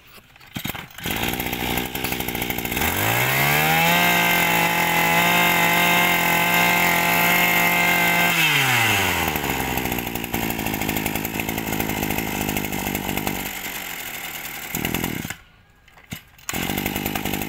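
Small two-stroke brush cutter engine starting about a second in and idling, then revved up to a high steady speed for about five seconds before dropping back to idle. It cuts out near the end and starts running again shortly after.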